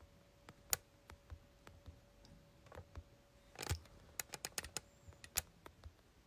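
Scattered light clicks and taps of fingers on a device, with one sharper click about a second in, a brief rustle past the middle, then a quick run of about half a dozen clicks. A faint steady hum under them stops about five seconds in.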